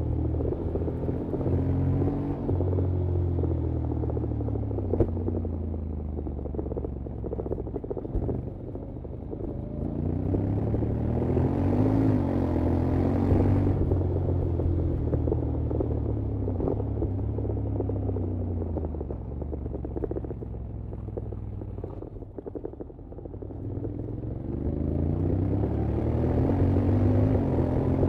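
Honda X-ADV 750's parallel-twin engine and exhaust under way, pitch climbing and falling in long sweeps as it accelerates and backs off, easing to its lowest a little over two-thirds through before climbing hard again near the end.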